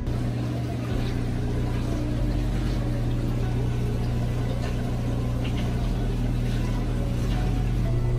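A steady low mechanical hum that runs unchanged throughout, with faint background noise over it.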